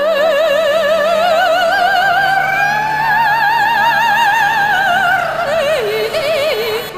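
Operatic singing: a voice holds long notes with a wide vibrato, climbing higher about two seconds in and sinking near the end, over a low sustained accompanying note.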